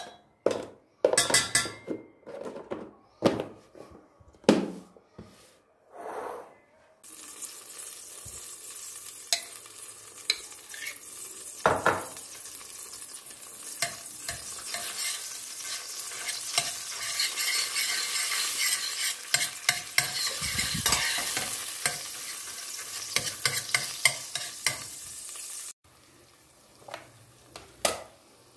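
A few seconds of utensils knocking and clattering against cookware, then food frying in hot oil in a pan while it is stirred. The frying is a steady crackling sizzle that cuts off suddenly near the end, followed by a few light clicks.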